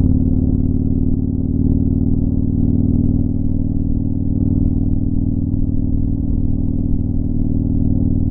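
Motorcycle engine running at a steady cruising speed, a low even drone that sounds muffled.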